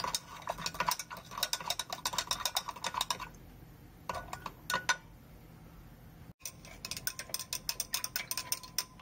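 A stirrer clinking rapidly against the inside of a glass beaker while baking soda is stirred into water to dissolve it. The clinks stop for about a second after three seconds in, then pick up again.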